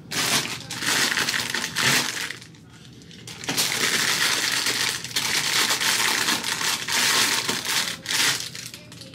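Close, loud crinkling and rustling from hands handling hair-dye materials, in two long stretches with a short lull about two and a half seconds in.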